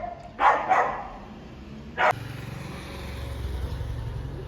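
A dog barks once about half a second in. A short sharp sound follows at about two seconds, and then a steady low hum takes over.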